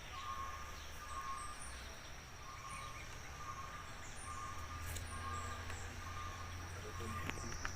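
Outdoor garden ambience: birds calling, one repeating a short note about every three-quarters of a second, with faint high chirps over a steady low hum.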